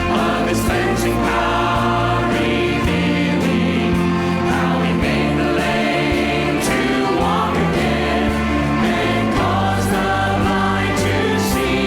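Congregation and worship band singing a hymn, with bass notes held under the voices and cymbal strikes now and then.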